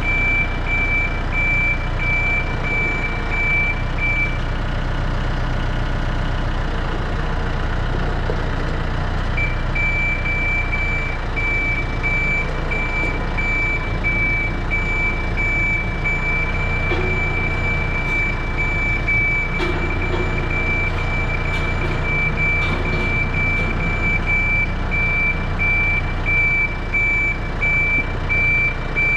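A tractor's back-up alarm beeping steadily over its running engine as the machine reverses. The beeping stops a few seconds in for about five seconds, then starts again and keeps on.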